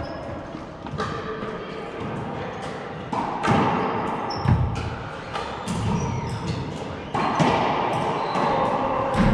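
A racquetball rally in an enclosed court: the rubber ball cracks off racquets, walls and floor in a string of sharp impacts at irregular intervals, each ringing in the court's echo. The hits come quieter and sparser at first, then faster and louder from about three seconds in.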